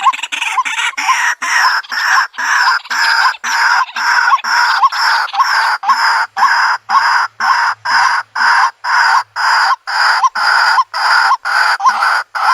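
White-breasted waterhen calling: a harsh call repeated steadily, about two and a half times a second, each call opening with a brief rising note.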